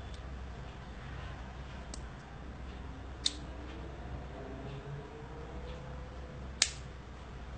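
Two short, sharp clicks about three seconds apart over a steady low hum.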